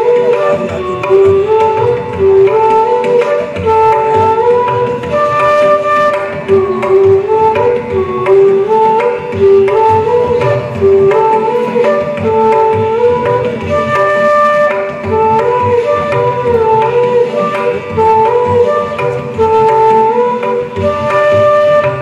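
Bansuri flutes playing a stepping melody in raag Hamsadhwani together, with tabla keeping ektaal underneath.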